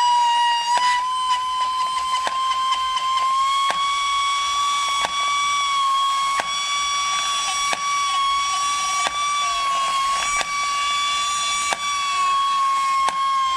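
Overvolted battery-toy egg-laying chicken running on a bench power supply, giving a steady high-pitched whine with regular clicks about every 1.3 seconds.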